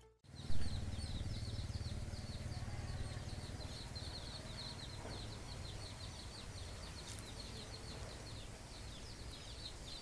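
Prenjak (prinia) birds in the trees calling a fast, steady run of short, high ticking chirps, several a second, which the uploader heard as fledglings begging to be fed. Under the calls runs a low steady rumble, with a short thump about half a second in.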